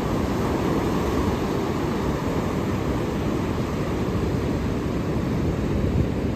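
Ocean surf breaking on the shore, a deep, steady rushing noise without clear separate waves.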